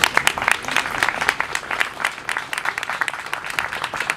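Small gathering applauding, a dense run of hand claps.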